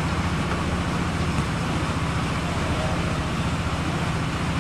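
Steady low engine hum running without change, with a haze of outdoor noise over it.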